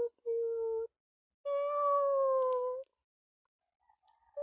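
Kitten meowing: a short meow, then a longer drawn-out one about a second and a half in that sinks a little in pitch, and another starting near the end.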